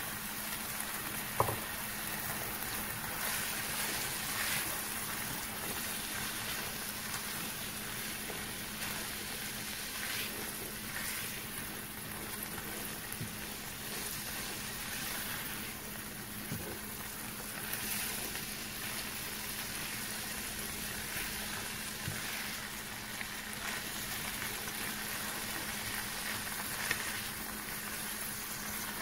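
Black beans and onion sizzling in a stainless-steel frying pan, stirred with a wooden spatula, over a steady low hum. A single sharp knock comes about a second in.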